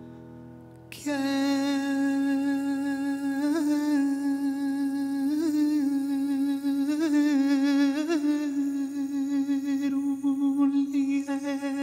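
A man's voice humming one long held note, entering about a second in and sustained for roughly ten seconds, with a few small swells in pitch.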